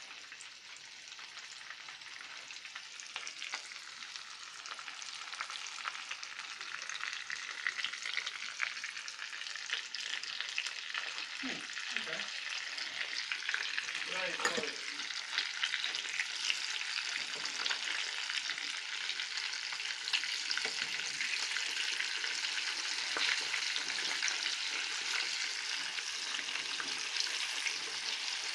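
Crumbed, egg-battered chicken pieces shallow-frying in hot oil in a pan: a steady crackling sizzle that grows slightly louder as it goes on.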